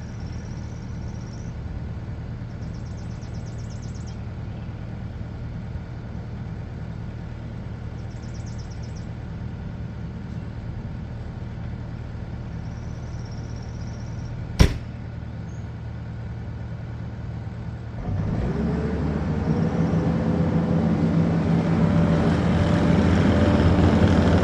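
New Holland C232 compact track loader's diesel engine running steadily, with a single sharp click about fourteen seconds in. About eighteen seconds in, the engine sound jumps louder and climbs a little in pitch as it revs up under load.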